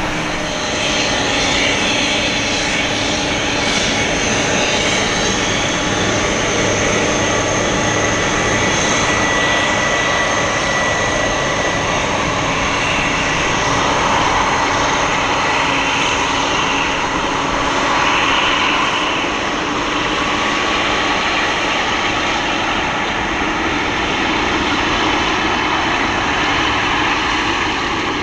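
Boeing 747-400's four turbofan engines running steadily as the jet rolls along the runway after landing: a continuous jet roar with a faint high whine through it.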